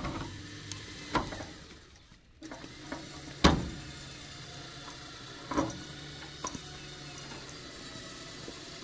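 A vehicle engine running steadily while it drags an old tractor through brush on a chain. Sharp cracks or snaps come about one, three and a half and five and a half seconds in; the middle one is the loudest.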